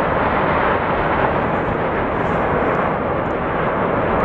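Volcanic eruption: a steady, loud roar from an ash column jetting out of a crater, with a continuous low rumble underneath.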